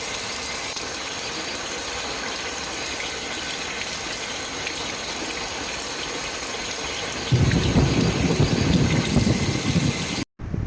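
Storm sound: a steady hiss of rain, then about seven seconds in a much louder low rumble of wind gusting against the microphone. It cuts off abruptly near the end.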